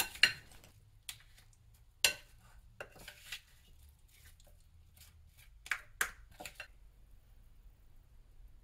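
A spoon clinks and scrapes against ceramic dishes as a salad is tossed in yogurt dressing and served, in about a dozen scattered light knocks. It stops about two-thirds of the way in.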